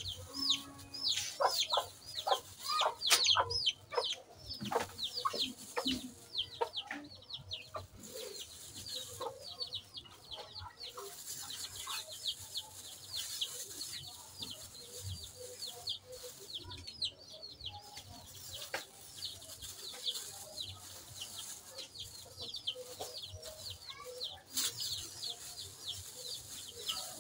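Chickens peeping and clucking: many short falling chirps repeat throughout, louder in the first few seconds. A thin plastic bag crinkles as it is handled.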